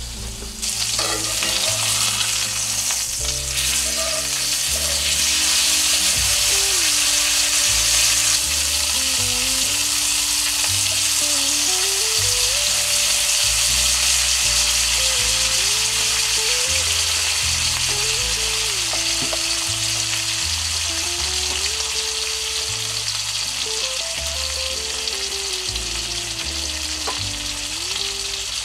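New York strip steak with garlic and herbs searing in a cast iron skillet: a loud, steady sizzle that jumps up about a second in. Background music with a slow melody and bass plays underneath.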